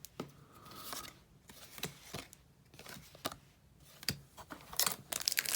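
Paper trading cards being handled and slid past one another in the hands, a run of dry rustles and small clicks, busier near the end.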